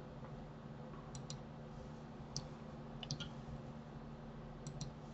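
Faint computer mouse clicks, about seven in all, several in quick pairs, over a low steady hum.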